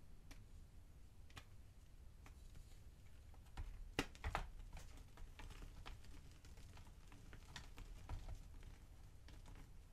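Blocks of gym chalk crushed and crumbled between the fingers: a few scattered soft crackles, then a cluster of sharper crunches about four seconds in, the loudest part, followed by a run of small crumbling crackles.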